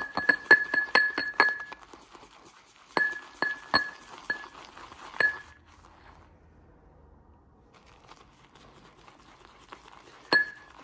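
Shaving brush clinking against a lather bowl as soap is whipped into lather: quick runs of ringing clinks, about two or three a second, in the first second and a half and again from about three to five seconds in, then softer brushing and a single clink near the end.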